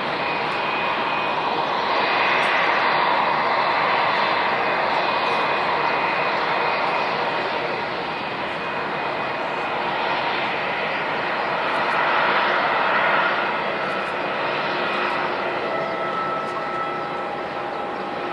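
Jet airliner engines running with a steady turbine whine over a dense rushing noise, swelling louder twice.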